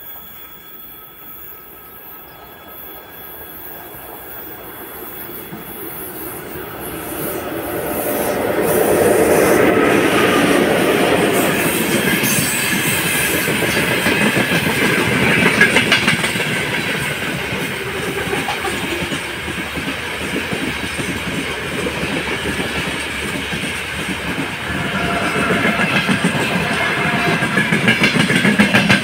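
Freight train hauled by a VL10U two-section electric locomotive passing close by. It grows steadily louder until the locomotive goes past about nine seconds in. Then the wagons roll past with a steady rumble and the clickety-clack of wheels over rail joints.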